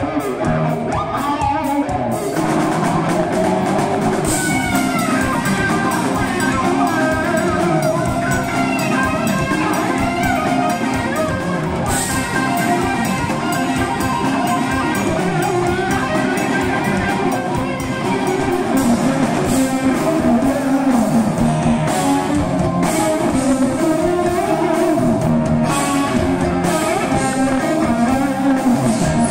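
Live rock band: electric guitar playing melodic lead lines with pitch bends over a drum kit.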